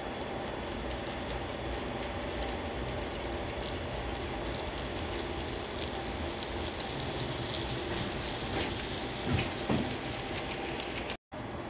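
HO-scale model train, a diesel locomotive hauling a railway crane car, running past on the layout's track: a steady running noise with a string of small clicks from the wheels over the rail joints, growing busier as it passes closest. The sound cuts out for a moment near the end.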